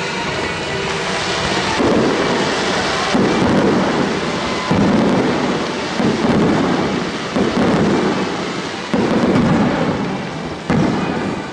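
Aerial firework shells bursting: about eight deep booms, each rolling away over a second or so, with a steady crackling hiss between them.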